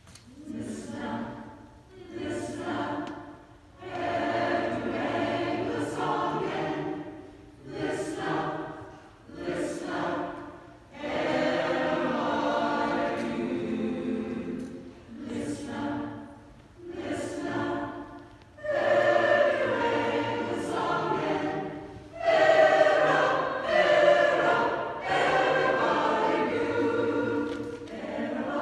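Mixed choir of men and women singing together, in phrases broken by short pauses. The singing grows louder about two-thirds of the way through.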